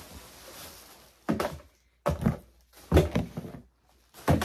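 Empty plastic lotion and body-cream bottles being handled and set down: a soft rustle at first, then four thunks about a second apart.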